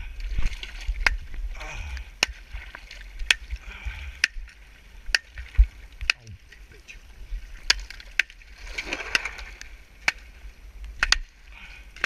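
A stick breaking and knocking thin pond ice: sharp, irregular cracks and clicks with water sloshing and ice pieces splashing, the longest splash about three-quarters of the way through. Wind rumbles on the microphone underneath.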